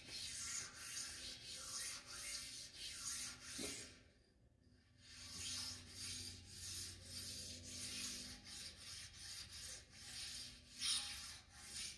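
An 8-inch sharpening stone rubbed back and forth by hand along the cast-iron ways of a Monarch lathe bed, stoning down raised burrs and nicks. The scraping comes in strokes a little under two a second, stops briefly about four seconds in, and then resumes.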